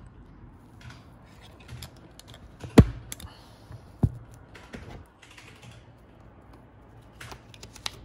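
Paper pages and inserts being handled and flipped in a pocket Filofax ring binder: light clicks and rustles, with two sharp knocks about three and four seconds in.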